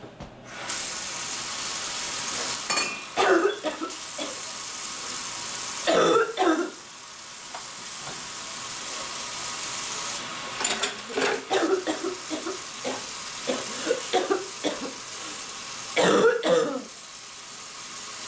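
Kitchen tap running into the sink in a steady hiss that stops for a few seconds midway and then starts again, with a woman's coughing fits over it: a few seconds in, at about six seconds, a run of coughs in the second half, and a harsh fit near the end.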